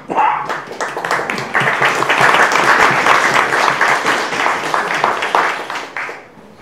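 Audience applauding, swelling about a second and a half in and dying away near the end.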